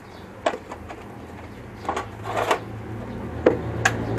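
Metal Torx bit sockets clicking and clattering as they are set back in a metal tool case, then the case lid shut with two sharp clacks near the end.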